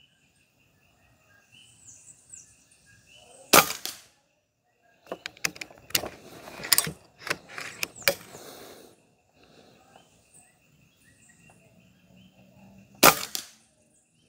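Two shots from a Karma SLS .22 PCP air rifle, one about three and a half seconds in and one near the end. Between them comes a run of clicks and clacks as the side lever is worked to chamber the next pellet from the magazine.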